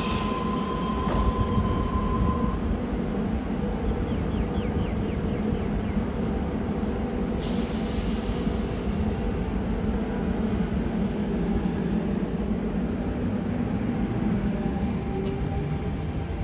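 Tangara double-deck electric train at the platform: a steady warning tone sounds for about two and a half seconds as the doors close, then the train pulls away with a continuous running rumble. A rising motor hum comes in near the end as it gathers speed.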